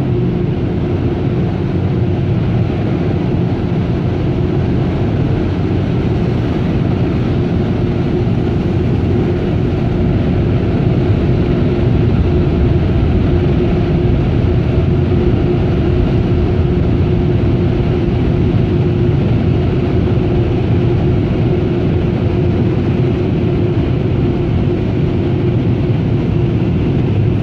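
Air dryer blowers of a Ryko Radius touchless car wash, heard from inside the car, running as a loud, steady rush of air with a constant hum: the drying stage at the end of the automatic wash.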